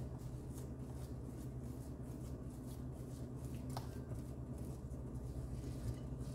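Silicone spatula stirring and scraping thick potato-and-cabbage dough in a ceramic bowl: soft, repeated squishing and scraping strokes, about three a second, over a steady low hum.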